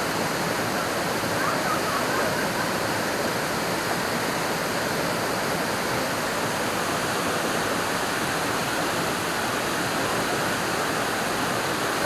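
Waterfall pouring down a steep rock face: a steady, unbroken rush of falling water.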